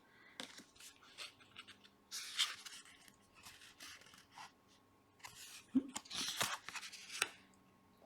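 Tarot cards being handled and slid against one another: a series of soft rustles and sliding scrapes with small clicks, the longest around two seconds in and again near the end.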